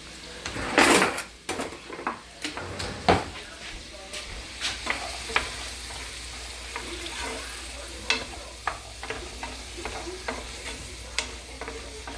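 Chopped vegetables sautéing in a hot pan: a steady sizzle, with a utensil stirring and knocking against the pan many times, and a louder burst of sizzling and scraping about a second in.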